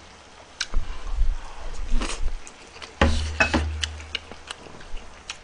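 A man eating close to the microphone: chewing and mouth noises, with short sharp clicks of a spoon against a bowl and a dull knock about three seconds in.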